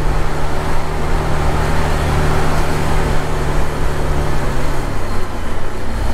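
Honda Click scooter's single-cylinder engine running at a steady cruise, with wind and road noise over the microphone; the engine note drops about five seconds in.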